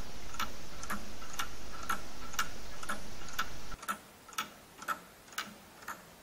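3D-printed plastic mechanical clock ticking evenly, about two ticks a second, from its printed escapement. A steady background noise under the ticks cuts off nearly four seconds in.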